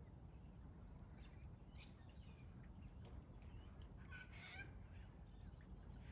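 Faint scattered calls of wild birds, a few short calls, with a brief cluster about four seconds in, over a low steady background rumble.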